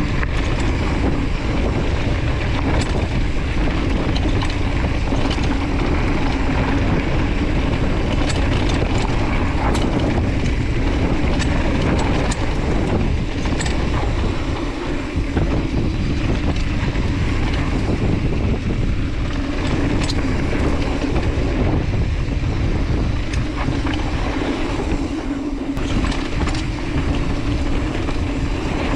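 Mountain bike riding fast downhill on a dry dirt trail: tyres rolling and wind rushing over the microphone, with scattered small clicks and rattles from the bike over bumps.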